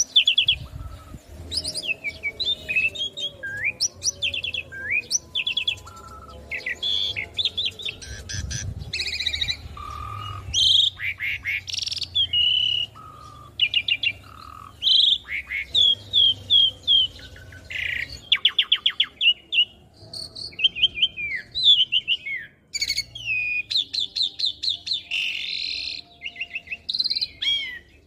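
Asian pied starling singing a long, varied song of whistled glides, rapid rattling trills and harsh rasps, phrase after phrase with short pauses between them.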